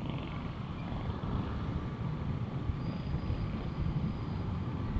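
Honda ADV150 scooter's single-cylinder engine running steadily under way, with a low, even road and traffic rumble.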